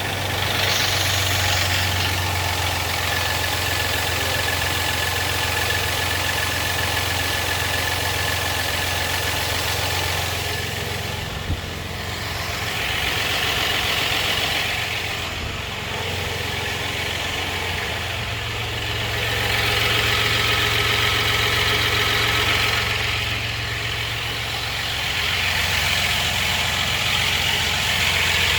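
4.3-litre V6 engine idling with a rattle, a steady low running sound that grows louder for a few seconds three times.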